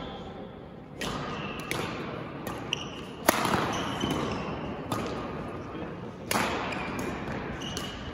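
Badminton rally: rackets striking the shuttlecock in several sharp cracks, the loudest about three seconds in, with shoes squeaking on the court floor and voices murmuring in the background.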